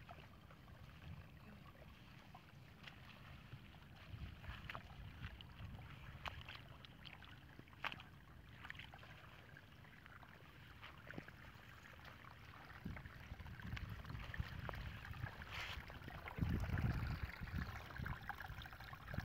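Wind rumbling on the microphone with scattered rustles and small clicks; in the second half, water trickling and splashing as it pours from a white plastic fish trap into a small pool, louder near the end.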